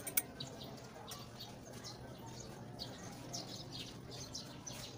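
Small birds chirping in quick, short notes in the background, with a sharp click right at the start.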